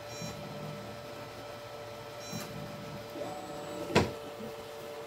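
Tronxy XY2 Pro 3D printer starting its auto bed leveling: short bursts of stepper-motor movement, each with a brief high beep, near the start, about two and a half seconds in and near the end, over a steady hum. A sharp click about four seconds in is the loudest sound.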